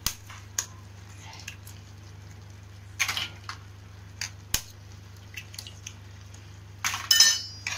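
Eggs cracked against the rim of a kadai and dropped onto noodles: a few scattered sharp taps and soft wet sounds, with a louder crackling rasp near the end, over a low steady hum.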